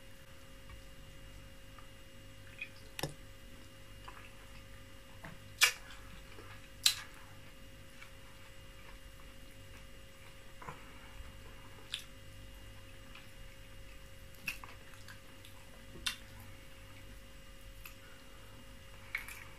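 Close-up eating sounds: short, sharp wet mouth clicks and smacks every few seconds while chewing oatmeal fufu with soup, over a faint steady hum. The two loudest smacks come about six and seven seconds in.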